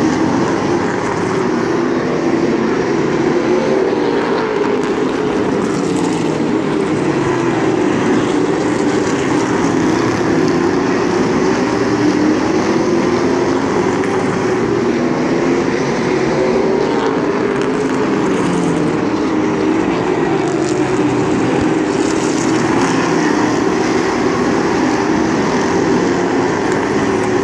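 A pack of limited late model stock cars racing on a paved oval, several engines running hard together, their notes rising and falling over one another as the cars circle the track.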